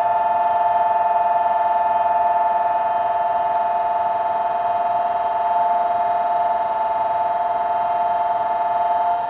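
Station departure buzzer: a steady two-tone electronic tone held for about nine seconds, fading out at the end.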